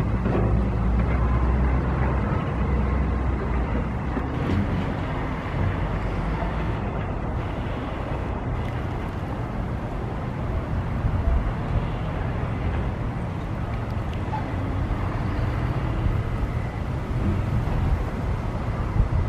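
Heavy demolition machinery running steadily outdoors, a low engine rumble under general site noise, with no distinct impacts.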